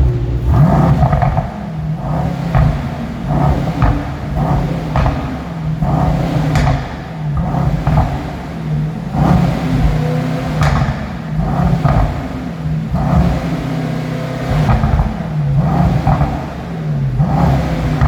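Mercedes-AMG E63 S twin-turbo V8 revved in quick repeated bursts, about one a second, rising and falling, with sharp pops and crackles from the sports exhaust between revs.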